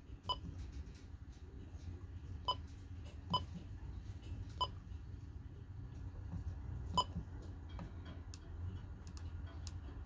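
Key beeps of an Icom IC-M330 VHF marine radio: five short, high beeps at uneven intervals, each confirming a button press as channels and settings are stepped through. Faint key clicks follow near the end, over a low steady hum.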